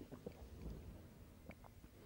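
Near silence: faint room tone with a few soft clicks and mouth noises from a man pausing at a microphone just after a sip of water.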